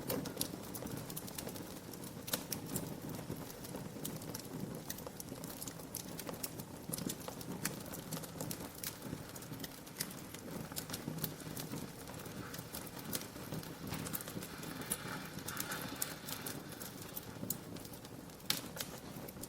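Wood fire crackling, with frequent irregular sharp pops and snaps over a steady low rush of the flames.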